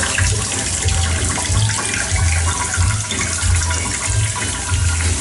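Water running or pouring steadily, with an uneven low rumble underneath.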